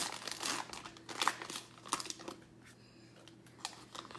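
Foil wrapper of a football trading-card pack being torn open and crinkled by hand: a run of irregular crackles that thins out in the middle and picks up again near the end.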